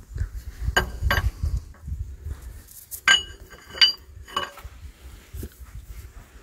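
A socket wrench worked on the connecting-rod bolts of a tractor engine: metal clinking against metal about five times, a few of the clinks ringing briefly.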